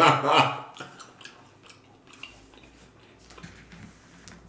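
The tail of a man's voice, then faint scattered clicks and taps as he handles food in a plastic takeout bowl.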